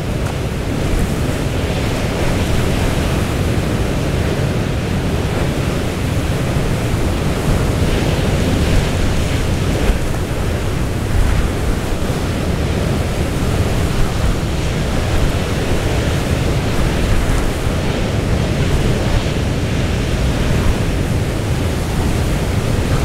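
Storm wind blowing across the microphone, a loud steady rush heaviest in the low end, over the noise of a rough, breaking sea.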